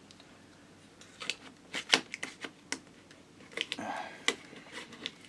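Plastic screen bezel of a Dell Vostro 3460 laptop being pried off by hand, its clips popping loose in a run of sharp clicks and snaps that starts about a second in, with a short spell of plastic scraping near the end.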